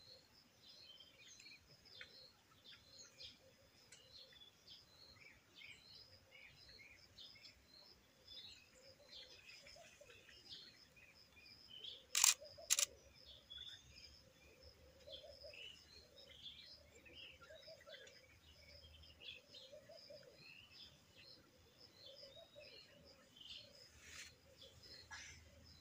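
Small birds chirping continuously and faintly. About halfway through, a Canon DSLR's shutter fires: two sharp clicks about half a second apart.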